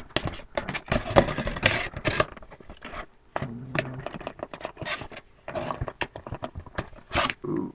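Cardboard collectible box being handled and opened by hand: an irregular run of scrapes, rubs and light knocks as its flaps and contents are worked loose.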